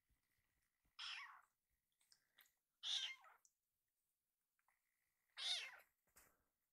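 Young kitten meowing three times, short high calls about two seconds apart.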